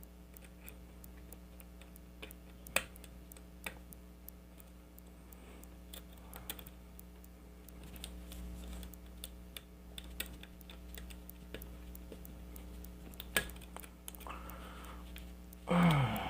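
Small scattered metallic clicks and taps of a hook pick and tension wrench working the pin stack inside a pin tumbler lock, over a steady low hum. Near the end there is a short vocal sound that falls in pitch.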